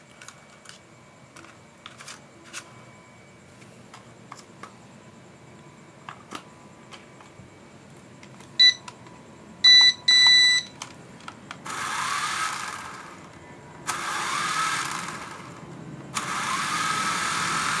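Three short electronic beeps about halfway through, then a small toy drone's motors and propellers whirring up in three bursts of a second or two each. Each burst rises in pitch and has a thin, high whine over it: the drone being powered and throttled up briefly to test it.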